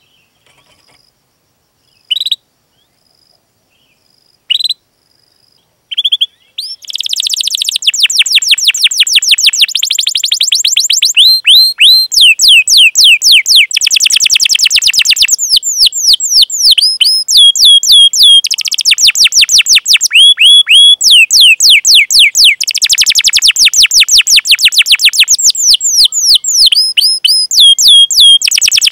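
Canary singing: a few single sharp chirps in the first few seconds, then from about six seconds in a loud, continuous song of rapid rolling trills and fast repeated high chirps.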